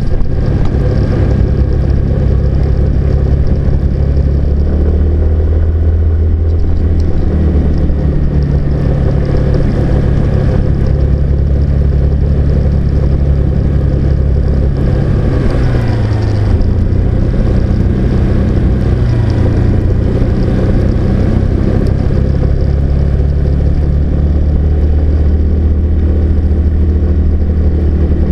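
Car engine running with tyre and road noise: a loud, steady low drone. The engine's pitch dips and shifts about halfway through.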